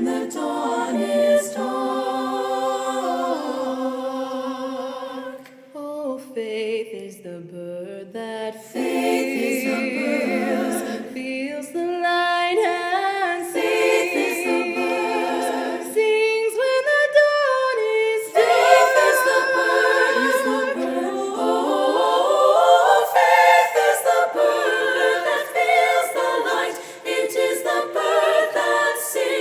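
Women's choir singing a cappella in sustained, overlapping voice parts, softer for a couple of seconds about six seconds in and swelling again after.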